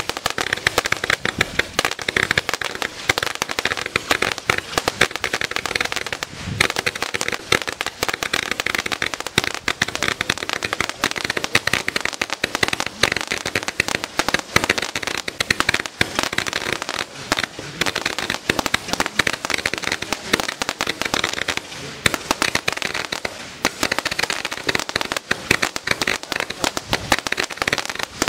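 Assorted Roman candles firing, a dense, unbroken stream of pops and crackles as many shots go off in quick succession.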